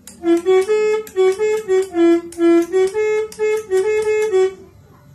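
Maroo telolet horn set, switched through a 17-button telolet module, playing a quick tune of about fifteen short buzzy horn notes that step up and down within a narrow range, stopping about four and a half seconds in.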